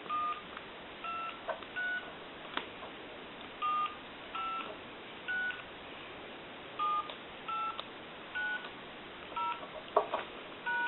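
Touch-tone (DTMF) dialing from a Conair SW2504 desk phone's keypad: about eleven short two-note beeps in an uneven sequence, with a few button clicks between them. The tones come from the keypad's tone generator, working again after its ribbon cable was resoldered.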